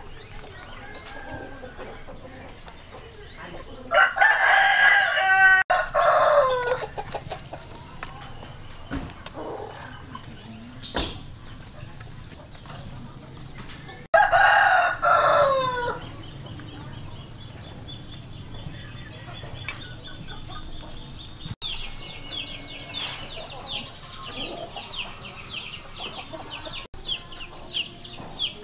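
A rooster crowing twice, about ten seconds apart, each crow lasting about two seconds and falling in pitch at its end. Later a fast, high, repeated chirping starts up.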